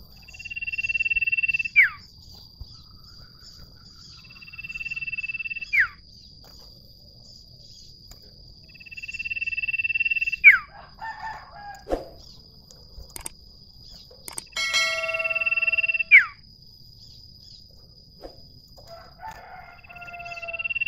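Common iora (cipoh/sirtu) singing its long drawn-out whistle: a high note held for about two seconds that ends in a sharp downward slur, given four times, with a fifth starting near the end. Shorter chattering calls fall between the whistles, over a steady thin high whine.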